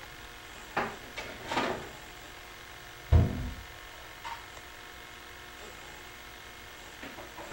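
A few short rustles and knocks in the first two seconds, then a single loud, low thump about three seconds in and a faint click a second later, over a steady low hum.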